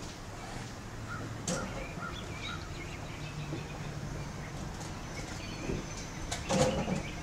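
Quiet indoor ambience with a steady low hum, a few faint short chirps about a second and a half in, and a brief louder knock or clatter near the end.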